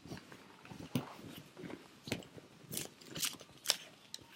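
A pair of scissors snipping open and shut several times, sharp clicks with light rustling between them.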